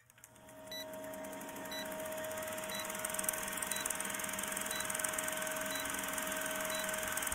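Vintage film-projector sound effect for a film-leader countdown: a steady whirring hum with a fine rapid clatter, growing slowly louder, with a short high beep once a second, seven times.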